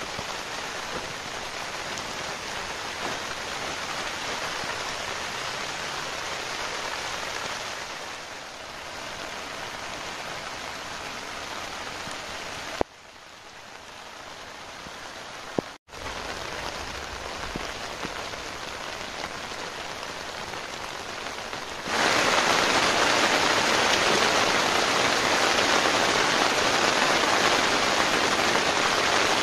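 Steady rain falling, an even hiss that dips briefly about halfway, then comes back and gets clearly louder for the last third.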